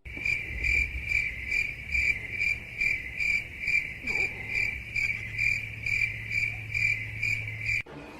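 Cricket chirping in a steady, even run of about three chirps a second, cutting off suddenly near the end.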